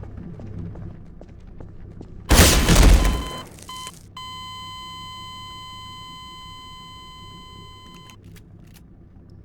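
A loud, rough burst of noise lasting about a second, then a brief electronic beep and a steady high-pitched electronic beep tone held for about four seconds before cutting off.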